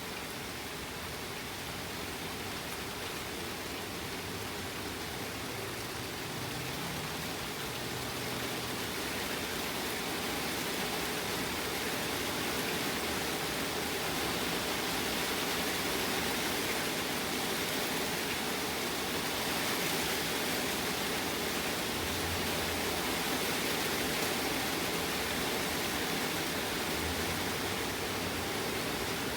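Heavy rain falling steadily in a thunderstorm, an even hiss that grows a little louder about eight seconds in.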